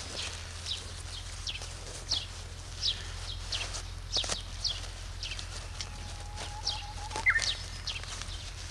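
A bird calling over and over with short, high, falling chirps, about two a second, with a brief held whistle near the end. A few soft clicks sound in between.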